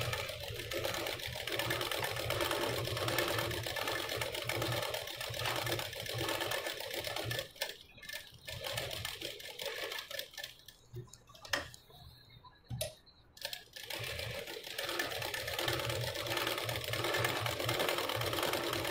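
Sewing machine stitching lace trim onto a silk blouse neckline, running in long, even runs. It stops for a few seconds in the middle, where two sharp clicks are heard, then runs again.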